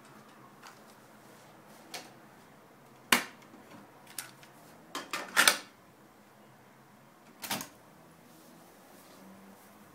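Mechanical clicks and clacks of a Sharp RT-1157 cassette deck being loaded: a sharp click about three seconds in, a quick run of clacks between four and five and a half seconds as a cassette is pushed into the well and the door snapped shut, then a double clunk about seven and a half seconds in as a piano-key transport button latches down.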